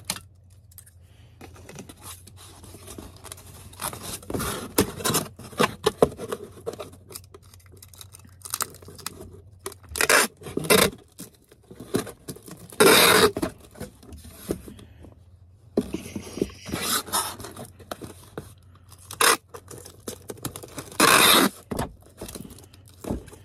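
Packing materials being handled: irregular scraping, rustling and tearing, with two longer tearing strokes, one about halfway through and one near the end.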